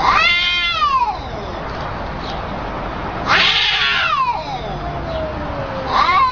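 Cats caterwauling at each other: long, wavering yowls that arch up and slide down in pitch. One comes at the start, a longer one about three seconds in, and another begins near the end.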